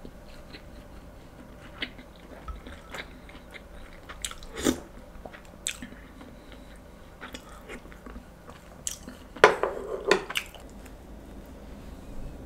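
Someone biting and chewing crunchy food, with scattered small clicks, a louder clack about a third of the way in and a short burst of clatter about three-quarters of the way through.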